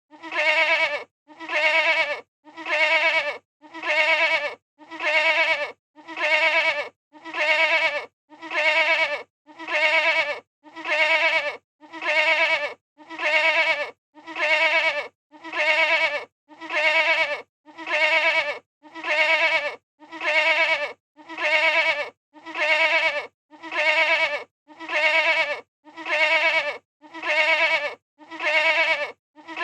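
A goat bleating: the same short, pitched baa repeated over and over at an even pace, a little more than one a second, with brief silences between.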